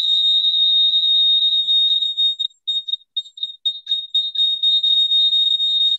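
High-pitched audio feedback whistle on a video call: one steady tone that breaks up into short stuttering pieces a little over two seconds in. It is typical of two devices in the same room with their sound on, which is what the host suspects.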